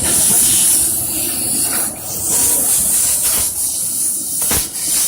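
Fiber laser cutting machine running, with a loud, steady hiss as it cuts and one sharp knock near the end.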